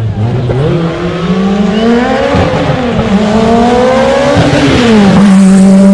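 Rally car engine revving hard, its pitch rising and falling several times as the throttle is worked, then held at steady high revs near the end.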